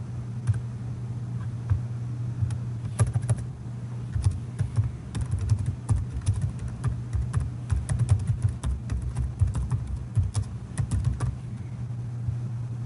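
Typing on a computer keyboard: a run of irregular key clicks over a steady low hum.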